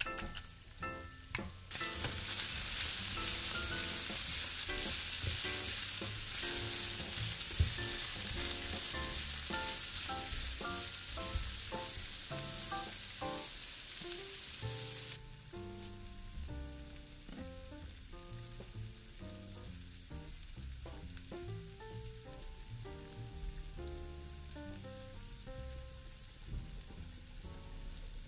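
Sliced red onions sizzling as they fry in oil in a nonstick pan. The sizzle starts about two seconds in and cuts off sharply about halfway through. Background music with plucked notes runs throughout.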